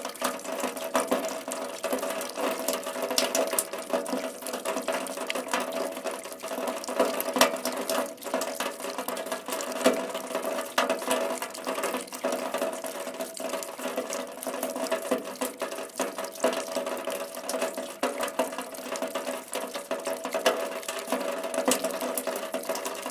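Steady rain falling, a dense hiss of many close, sharp drop hits that keeps on without let-up.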